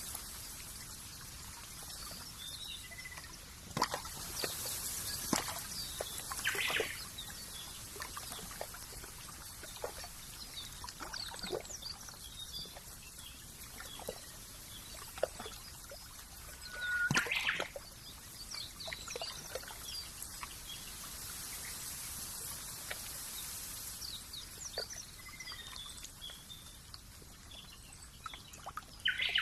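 Nature ambience of trickling water with scattered short bird chirps over a steady high hiss; a few louder splashes of water stand out.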